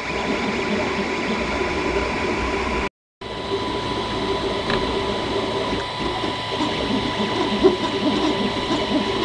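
Creality CR-10S 3D printer running mid-print: a steady machine whir with a high steady tone, and the stepper motors whining in shifting pitches as the print head moves. The sound cuts out briefly about three seconds in, then carries on.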